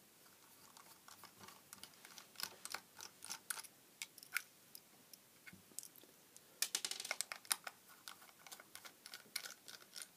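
Small screwdriver clicking and scraping in the screw heads and on the plastic case of a plug-in night light as its screws are undone. The clicks are irregular, with a quick run of them about two-thirds of the way through.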